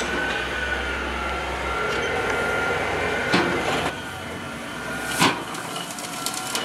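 Brush truck's engine running with a steady high hydraulic whine as its knuckle-boom grapple loader works a pile of tree trimmings. Two loud sharp knocks stand out, about halfway and near three-quarters through, from the grapple and branches.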